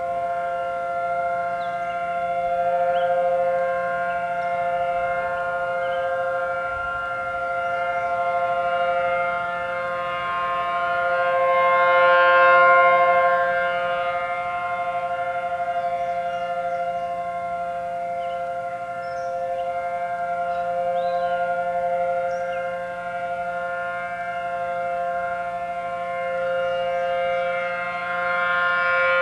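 Civil defense warning siren sounding a steady tone: a held, unchanging chord whose loudness swells and fades every few seconds, during a siren test.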